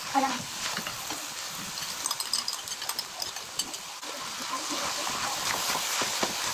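Fried noodles with cabbage sizzling in a hot frying pan while they are tossed with wooden chopsticks, with a steady hiss and scattered light clicks of the chopsticks and food.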